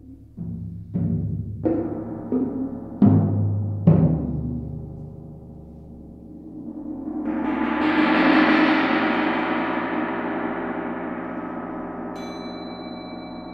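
Solo percussion: about six tom-tom strokes growing louder over the first few seconds, then a large gong rolled into a swell that peaks and slowly rings away. Near the end a thin high ringing tone comes in above the gong.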